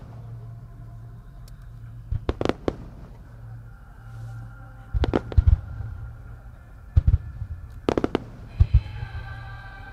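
Firework shells bursting aloft in several quick clusters of sharp bangs, with music playing underneath.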